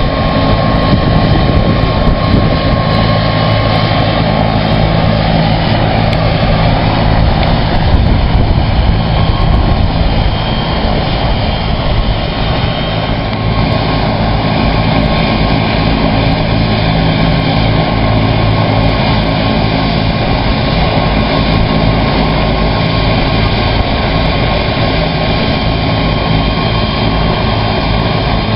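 Bell 206 JetRanger helicopter running on the ground with its rotor turning, a loud, steady turbine-and-rotor sound. A higher whine heard at first fades out after about six seconds.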